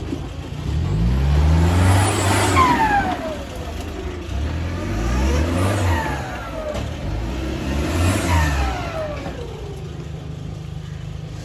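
Modified off-road 4x4 engine revving hard in three bursts as the vehicle climbs through the bushes, each burst rising and then dropping away with a whine that falls in pitch.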